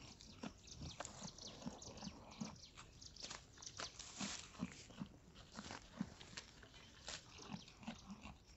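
Goats browsing and moving through dry thorn scrub: irregular crunching and crackling of dry twigs and leaves, with soft low thuds.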